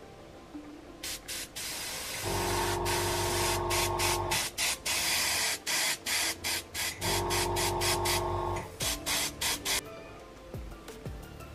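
Airbrush spraying paint in a long run of short trigger bursts, each a hiss broken by brief stops. A steady hum lies under the two longest bursts.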